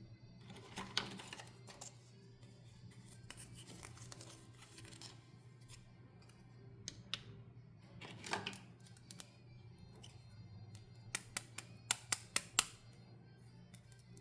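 Toy packaging being opened by hand: rustling and tearing of packaging with scattered crackles, and a quick run of about six sharp clicks near the end, over soft background music.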